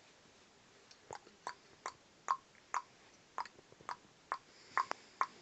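Clip-clop hoofbeats for a galloping Lego toy horse: about a dozen sharp clicks, two or three a second in an uneven rhythm.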